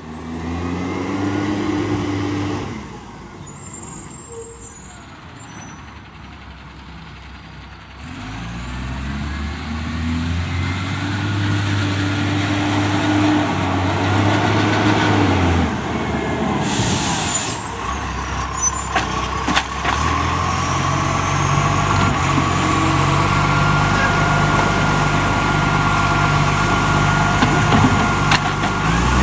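International Acco garbage truck's diesel engine, which has an exhaust leak, revving up and dropping back several times, with a brief air hiss partway through. Near the end it holds at raised revs with a faint whine over the engine.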